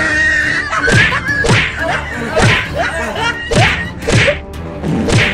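A rapid run of whooshing hit sound effects, as in a staged fist fight: about eight swishes, each falling in pitch and ending in a thud, roughly one every half second, over background music.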